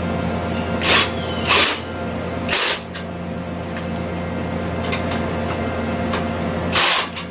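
A steady low mechanical hum with four short hissing bursts, about a second, a second and a half, two and a half and seven seconds in.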